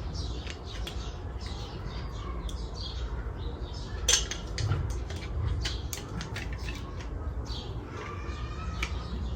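Light clicks and crinkly rustles of a salt shaker and its packaging being handled, with a sharper click about four seconds in and a brief squeak near the end, over a steady low hum.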